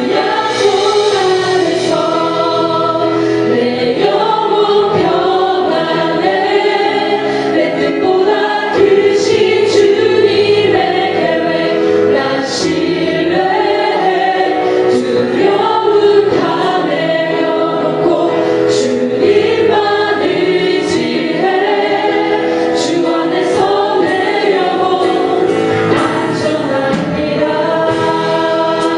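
Live worship music: many voices singing a Korean praise song together, with sharp percussion hits now and then.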